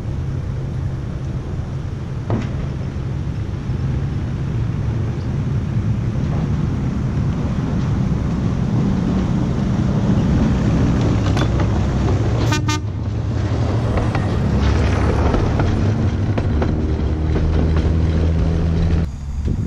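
Galloping Goose #5 rail bus approaching and passing on narrow-gauge track, its engine running steadily and growing louder as it nears. It gives short toots of its horn.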